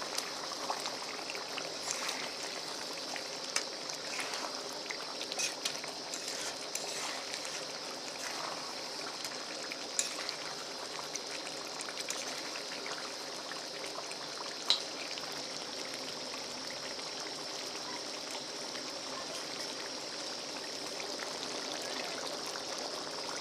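Mutton pieces frying in oil with spices in a kadai: a steady sizzle, at the stage where the meat is being browned (kosha) before water is added. Occasional sharp clicks rise out of the sizzle.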